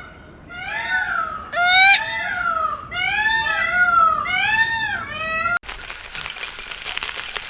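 A cat meowing over and over, about two short meows a second. About five and a half seconds in the meows stop abruptly and a steady hiss follows.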